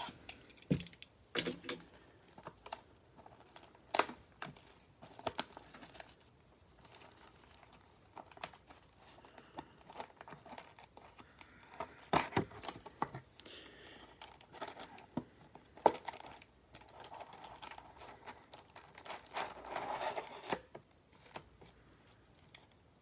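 Plastic wrapping and cardboard crinkling and tearing as a Prizm basketball retail box is cut open and its foil card packs are taken out, with scattered clicks and taps of handling.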